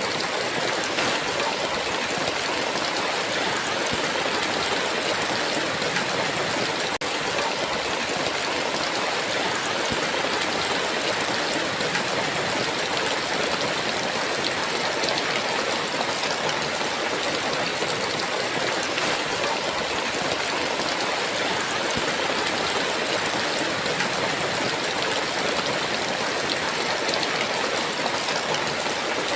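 Heavy rain falling steadily: a dense, even downpour with no thunder.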